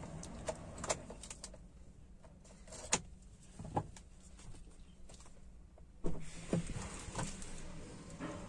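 Scattered clicks and light knocks inside a car cabin over a low steady hum, busier and louder from about six seconds in.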